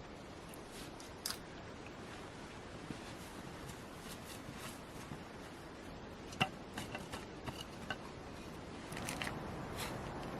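Steady hiss with scattered small clicks and taps of something being handled; the sharpest click comes about six and a half seconds in, and a quick run of ticks follows near the end.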